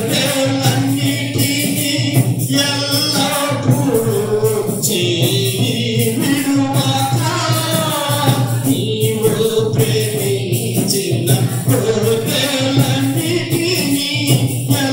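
Telugu Christian devotional song: sung melody with long held notes over instrumental backing and a steady percussion beat.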